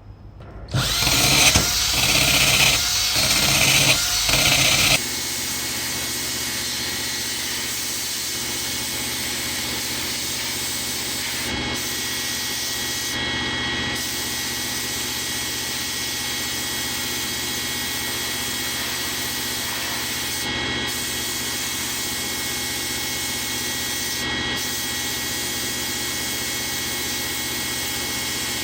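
Handheld electric power tool running. It is loud and uneven for the first few seconds, then runs steadily with a constant whine.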